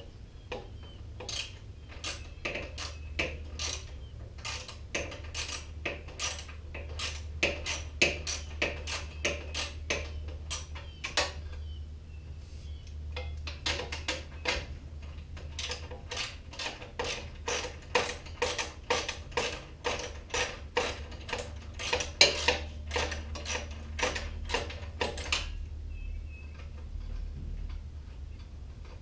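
Socket ratchet wrench clicking in quick runs of sharp clicks as bolts are worked loose, with a short break about twelve seconds in. The clicking stops a few seconds before the end, leaving a steady low hum.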